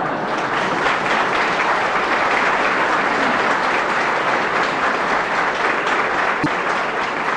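Large seated audience applauding steadily with some laughter, in response to a joke's punchline.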